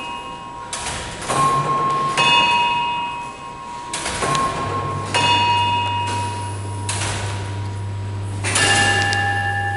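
Wells Cathedral's medieval astronomical clock striking its bells: about seven sharp strokes at uneven intervals, each leaving a ringing tone that hangs on, with a lower-pitched bell near the end. A low steady hum comes in about halfway.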